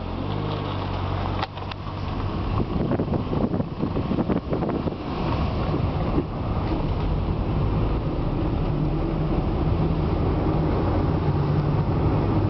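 Car engine and road rumble heard from inside a moving car, with knocks and rattles in the first half.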